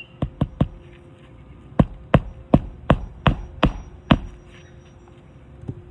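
Hammer driving a new roofing nail through an asphalt shingle: three quick light taps to set it, then seven harder blows about every 0.4 s.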